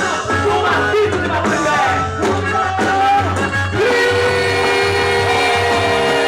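Quadrilha junina music playing loud, with a steady bass pulse; a long held note comes in about two-thirds of the way through.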